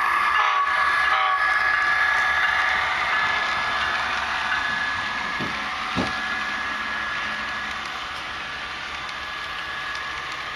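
HO scale model double-stack intermodal train rolling past on the layout track, its wheels running with a steady hiss that slowly fades as the cars go by. A pitched horn-like tone dies away in the first second, and two light clicks come about five and a half and six seconds in.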